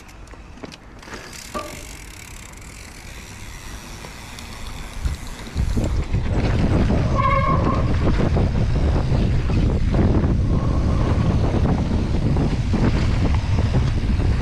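Mountain bike riding down a dirt trail: wind rushing over the microphone and knobby tyres on dirt, with a few clicks early on, turning loud and steady about five and a half seconds in as the bike picks up speed. A brief squeal sounds once partway through.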